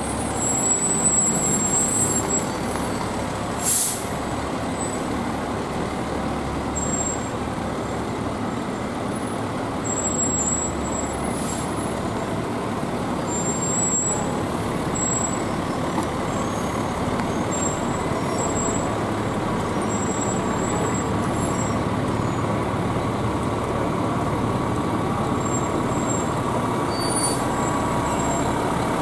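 Diesel engines of fire trucks running as the apparatus roll slowly past one after another, with a short hiss of air brakes about four seconds in.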